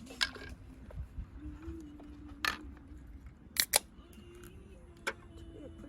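A few sharp, short clicks: one near the start, one about two and a half seconds in, a quick pair a second later and one more near the end, over a steady low hum.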